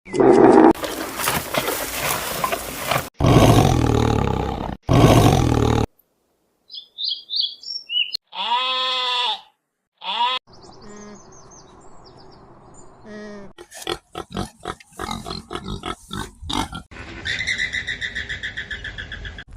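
A string of different animal calls edited one after another with short silences between: loud rough roaring or grunting calls in the first six seconds, then short high chirps, a pitched call rising and falling, and near the end a fast run of repeated pulsed calls.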